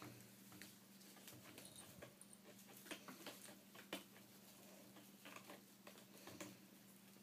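Faint, irregular taps and light clicks of kittens' paws batting at a tablet's glass screen and scrabbling on the tile floor, over a low steady hum.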